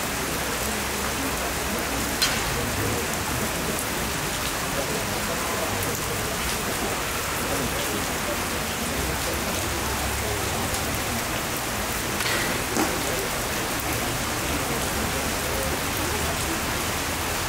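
Steady rain falling, an even hiss with no break, with a few sharp snaps on top of it, one about two seconds in and another around twelve seconds in.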